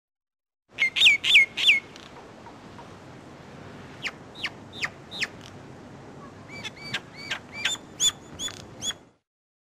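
Myna calling: a series of short whistled notes in three bouts. Four loud notes come about a second in, four falling notes come in the middle, and a quicker run of about eight notes with rising hooks comes near the end, all over a steady hiss.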